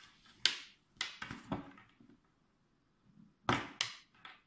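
Short clicks and taps from handling a smartphone and the small plastic plugs of a multi-head USB charging cable: one sharp click near half a second in, a quick cluster around a second in, and two sharp clicks near the end.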